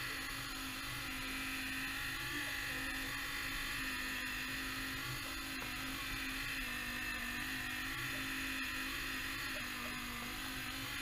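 Model aerial cable car's small electric drive motor running as the gondolas travel along the cable: a steady low hum with a higher whine above it, wavering slightly in pitch.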